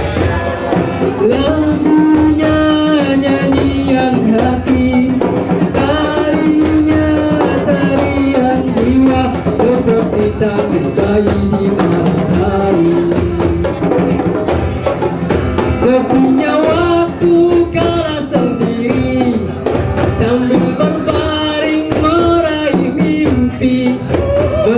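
Music: a gliding melody played over drums and percussion.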